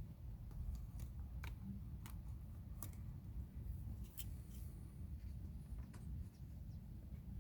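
Faint, irregular sharp clicks and ticks, about eight of them, over a steady low rumble.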